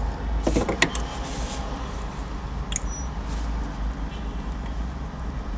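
Hand tools clinking on the AC hose fittings at the compressor while the lines are unbolted: a few sharp metallic clicks in the first second, then a couple of faint short ticks, over a steady low rumble.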